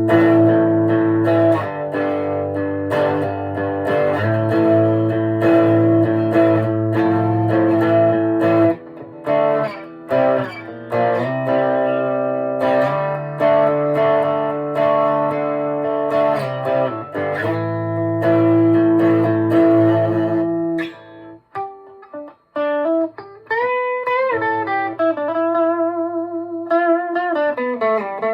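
Electric guitar played through a Boss Katana 50 MkII amp on its crunch channel, with an overdrive pedal on. It starts with held, distorted chords, then about three-quarters of the way in a single-note lead line with notes bent up and down in pitch.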